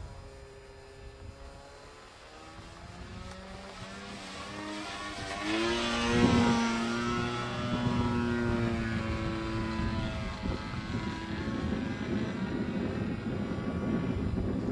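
Propeller engine of a Zero fighter plane flying past overhead. It grows louder to its closest point about six seconds in, where its pitch bends downward, then keeps droning steadily.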